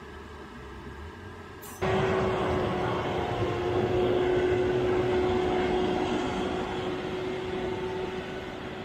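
A quieter engine hum heard from inside a truck cab for about two seconds, then an abrupt jump to a John Deere front-loader tractor's engine working under load as it pushes chopped corn silage across the pit. The tractor's sound is steady, with a constant whine over the engine, and slowly fades toward the end.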